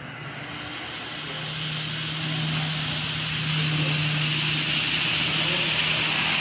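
Model train running past on a layout: the rattle of the cars' wheels on the rails and a steady low motor hum, growing louder as the diesel locomotive and its boxcars come close.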